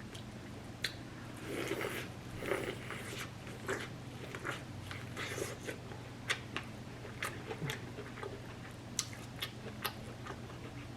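Close-miked chewing and mouth sounds of someone eating seafood, with scattered small sharp clicks and soft wet smacks over a faint steady low hum.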